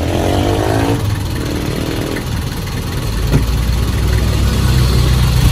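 Van engine running steadily, its low hum growing louder about halfway through.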